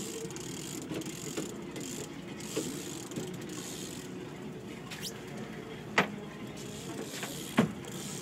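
Trolling reel being cranked against a large hooked fish that is still fighting, a steady mechanical whirring with light clicking. Two sharp knocks, about six seconds in and again near the end.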